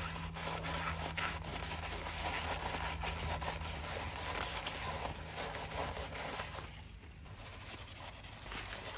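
Paper towel rubbing and crinkling against the inside of a sewing machine's metal oil sump as the last of the oil is wiped out, with many small crackles and taps. It gets quieter about seven seconds in.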